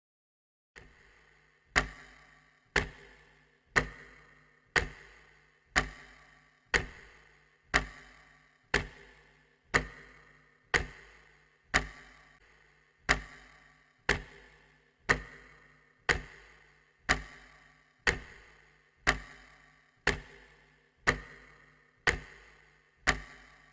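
Clock ticking, one sharp tick a second, each with a short ringing tail; it starts about a second in after a faint first click and stops near the end.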